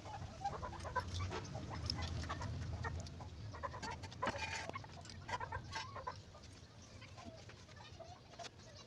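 Chickens clucking now and then, mixed with a few light taps.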